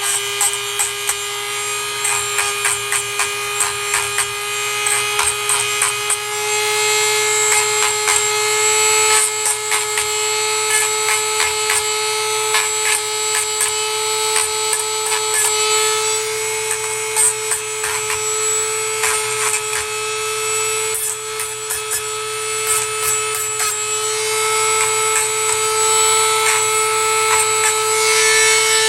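Corded Dremel-type rotary tool running steadily at a middle speed setting, a constant motor whine with repeated short scratchy grinding as the bit is touched to a chainsaw chain's rakers (depth gauges) to file them down.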